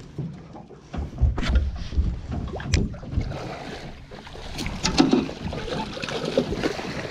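Irregular knocks and thumps of someone shifting about on a small boat's deck and handling a fishing rod, with low rumbling from wind or handling on the microphone.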